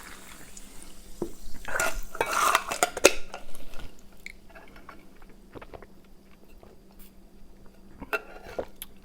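Tableware handled at a table: clinks and knocks of dishes and utensils, loudest in a cluster about two seconds in, then scattered quieter small clicks.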